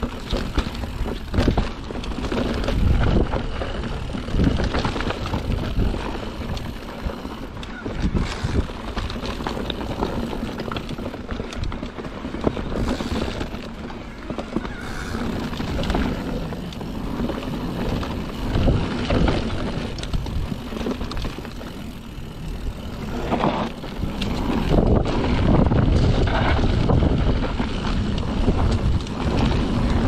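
Mountain bike riding down a dirt trail: knobby tyres rolling over dirt and dry leaves, with the bike knocking and rattling over bumps and wind rumbling on the camera microphone. It grows louder in the last several seconds.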